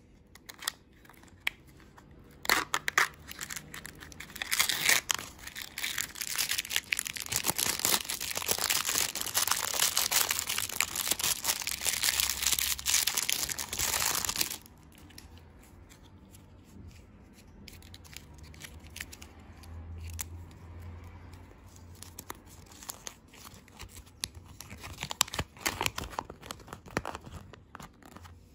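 Plastic and foil candy-and-toy wrappers being torn open and crinkled by hand. A long stretch of dense rustling and tearing starts about five seconds in and stops suddenly about halfway through. Softer scattered crinkles follow, with a short burst of rustling near the end.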